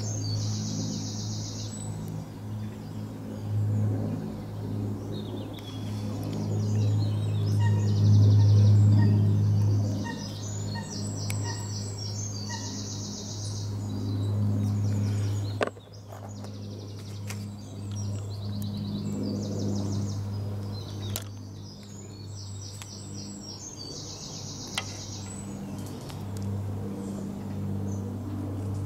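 Songbirds singing, a high rapid trilled phrase recurring every few seconds, over a steady low hum. One sharp click comes about halfway through.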